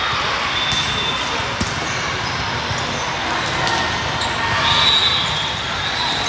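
Busy indoor volleyball hall: a steady din of voices, with sharp smacks of volleyballs being hit and bouncing several times, and a short referee's whistle a little after four and a half seconds in.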